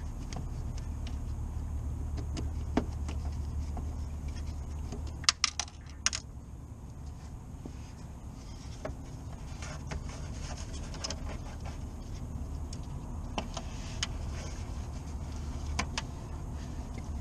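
Scattered metallic clicks and clinks of hand tools and small metal parts being worked on a car's front end, with a sharp cluster of clinks about five seconds in, over a steady low hum.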